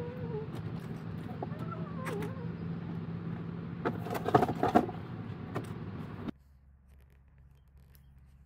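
Sharp knocks and clicks of hand work on the floor of a stripped-out van, loudest around four to five seconds in, over a steady low hum, with two short wavering pitched calls before them. The sound cuts off suddenly a little after six seconds.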